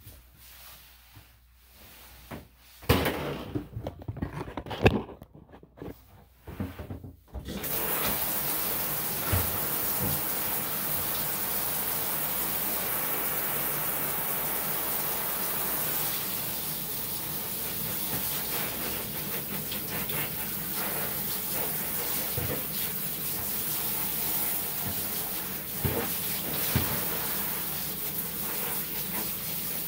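A few irregular knocks and clatter, then about seven seconds in a handheld shower head starts spraying water steadily onto a small dog's coat in a bathtub.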